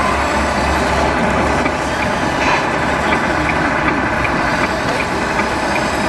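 Radio-controlled scale model trucks and a model wheel loader running, giving a steady truck-engine sound.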